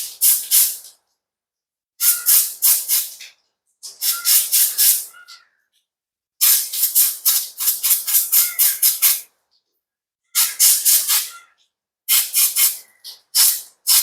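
A can of compressed air (air duster) blowing dust out of a car's cabin temperature sensor, fired in quick repeated hissing squirts, several to a group, with short pauses between the groups. Some squirts carry a faint whistle.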